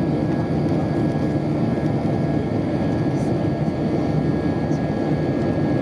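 Steady cabin noise of an Airbus A320 in climb, heard from a window seat over the wing: the low, even rumble of its IAE V2500 turbofan engines and the rush of air past the fuselage, with a thin steady whine above it.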